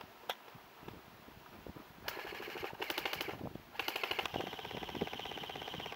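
Airsoft guns firing rapid full-auto bursts: one burst starting about two seconds in, a brief pause, then a longer burst running on, the shots too fast to count. A single sharp snap sounds just before the bursts begin.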